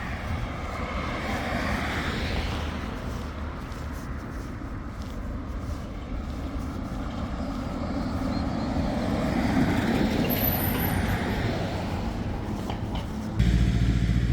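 Road traffic going past, swelling as vehicles pass near the start and again around two-thirds through, with a sudden low rumble near the end.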